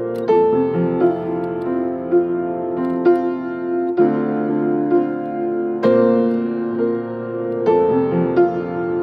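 Grand piano being played in a slow, improvised worship-song style: full sustained chords ringing under struck melody notes, with a new chord about every one to two seconds.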